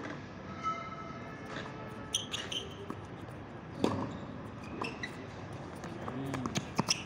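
A tennis ball being struck by rackets and bouncing on a hard court during a rally. The sharp hits come a few seconds apart, the loudest about four seconds in and a quick cluster near the end.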